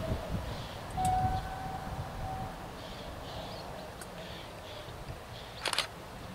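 Wind buffeting the microphone, with birds chirping. About a second in comes a short steady horn-like tone that lasts under two seconds.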